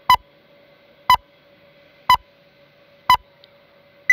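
Film-leader countdown sound effect: a sharp blip once a second, four times, then a brief higher beep at the very end, over a faint steady hum.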